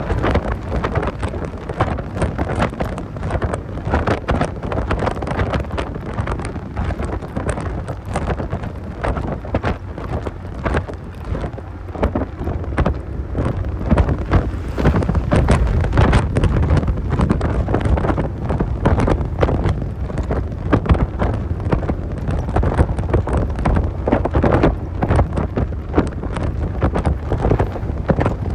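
Heavy wind buffeting on the microphone of a moving 1990 Mazda Miata (NA), a constant low rumble full of crackles that drowns out the car's own driving noise.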